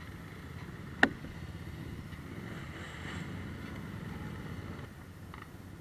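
Several ATV engines running steadily as the quads churn through a muddy water hole. A single sharp click sounds about a second in.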